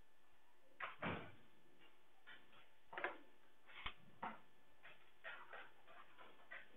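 Faint, scattered taps and knocks, about half a dozen short ones spread over a few seconds, against a quiet room.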